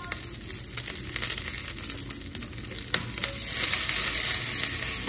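Green beans sizzling and crackling in butter in a hot skillet, the sizzle growing louder about three and a half seconds in.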